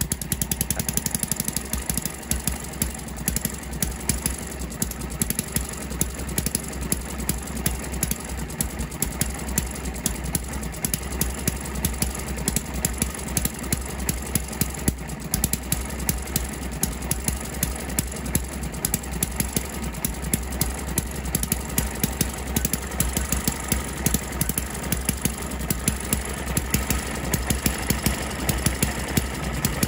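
ET6 model hit-and-miss engine, a small single-cylinder spark-ignition engine, running on its first start from stone cold. It makes a fast, steady mechanical clatter with louder sharp beats at uneven intervals.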